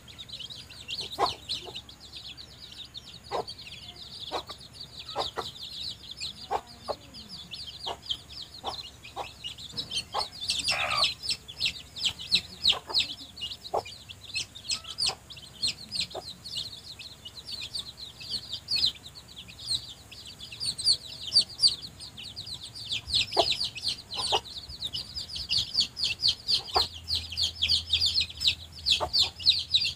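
A brood of young chicks peeping constantly in a dense stream of high, rapid cheeps, with a mother hen's short low clucks now and then.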